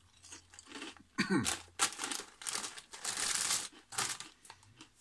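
Plastic crisp packet crinkling in irregular bursts as it is picked up and handled, loudest about three seconds in. A brief vocal sound comes about a second in.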